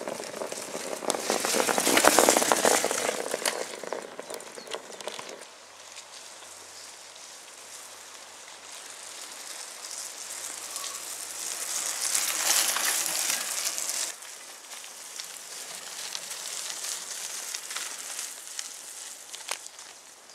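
Mountain bike tyres crackling and crunching over a gravel and dirt track as riders pass close by. The sound swells twice and drops abruptly about five and fourteen seconds in.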